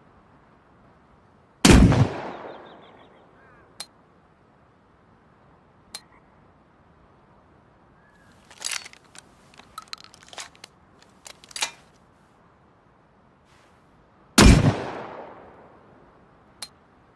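Shotgun fired twice, about thirteen seconds apart, each loud blast trailing off in a long echoing decay. Between the shots come a few single clicks and a quick run of sharp mechanical clicks and clacks.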